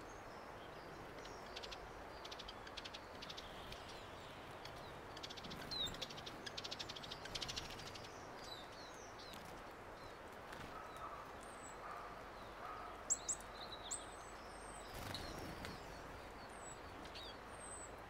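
Small songbirds chirping and twittering over a steady outdoor hiss. A fast rattling run of notes comes about six to eight seconds in, and short sharp high chirps come about two-thirds of the way through and again near the end.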